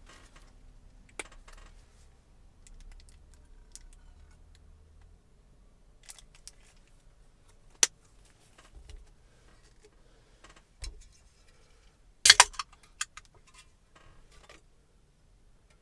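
Scattered sharp clicks and light rattles of small hard objects being handled, with a louder burst of clatter about three-quarters of the way through.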